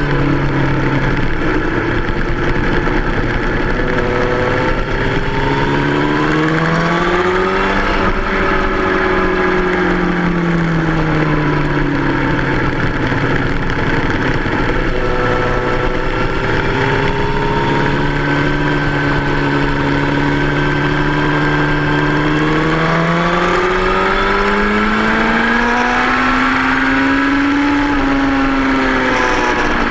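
2003 Yamaha R1's inline-four engine running hard. Its note climbs under acceleration and falls as the throttle is rolled off, twice over, with a steady rush of wind noise underneath.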